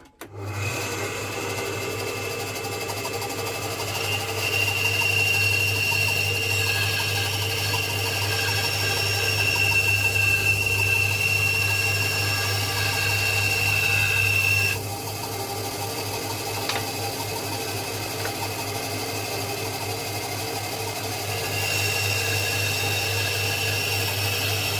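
Electric power saw running steadily while wooden pieces are cut down to length. Its motor hums throughout, and it gets louder for a long stretch in the middle and again near the end.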